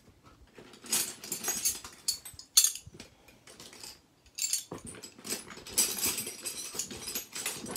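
Metal wrenches clinking and rattling against other tools as a hand rummages through a tool bag, with one sharp clank about two and a half seconds in.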